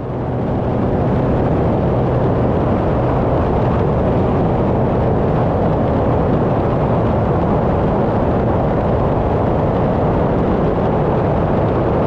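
Cessna 185 floatplane's engine and propeller running steadily: a loud, constant drone with a low hum under it, cutting in suddenly at the start.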